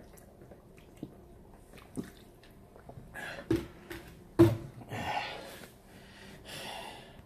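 A man gulping water from a plastic bottle, with a few faint swallowing clicks, then a sharp knock about four and a half seconds in and a few breaths out.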